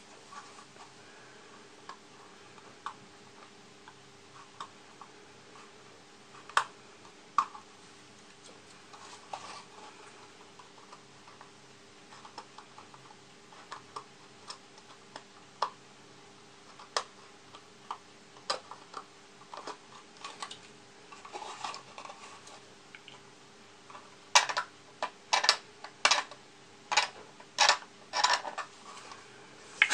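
Dull hobby knife blade cutting and scraping into a plastic model kit part, giving scattered small clicks and ticks. Near the end comes a quick run of about eight louder clicks.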